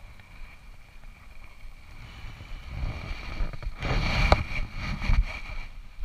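Rustling and low thumps close to a chest-mounted camera: cloth rubbing over the microphone and footsteps through fallen leaves and grass, loudest about four seconds in, with one sharp click.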